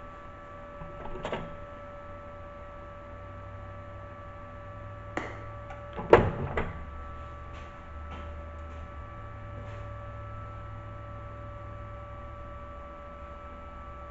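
Steady electrical hum with a handful of scattered knocks and clicks. The loudest is a sharp knock about six seconds in.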